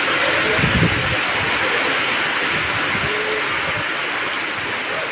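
Heavy rain pouring down on a concrete platform and railway tracks: a loud, steady hiss, with a brief low rumble about a second in.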